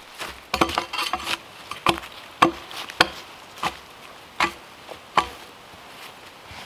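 Long-handled bark-peeling tool knocking and scraping against a log as bark is stripped off. After some scraping and clicks in the first second and a half come six sharp woody knocks, each under a second apart, stopping about five seconds in.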